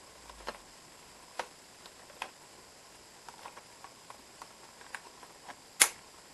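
Toy packaging being handled as finger puppets are freed from it: scattered faint clicks and taps, with one sharper, louder click a little before the end.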